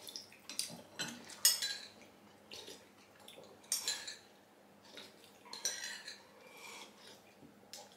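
Metal spoons clinking against ceramic soup bowls, with soup slurped from spoon and bowl in a string of short, irregular sounds.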